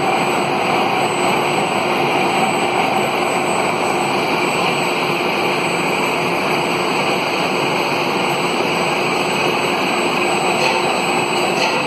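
Gear hobbing machine running with a servo drive, cutting teeth on a shaft: a steady, loud mechanical running noise with a few constant hum tones, unchanging throughout.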